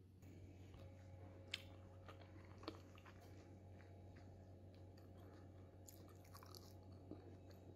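Faint close-miked eating sounds of agar fruit jelly being bitten and chewed, with two sharp clicks about one and a half and two and a half seconds in, over a low steady hum.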